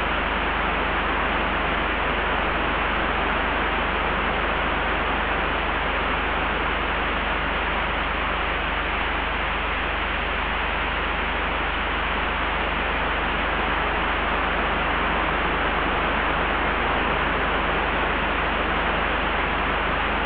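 Layered wind ambience: a steady, even hiss of wind with a low rumble underneath, holding level without distinct gusts.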